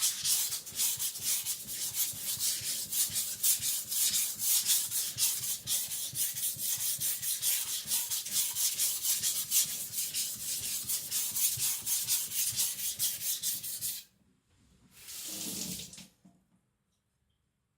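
Kitchen cleaver edge stroked rapidly back and forth on a whetstone with light pressure, blending and minimizing the burr after a clean apex. The strokes stop about 14 seconds in, followed by one brief rubbing sound and then quiet.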